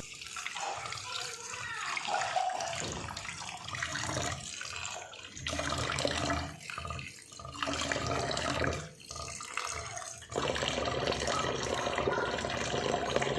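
Running water splashing as bilimbi flowers are rinsed by hand in clean water, uneven with a few short breaks, then running steadily for the last few seconds.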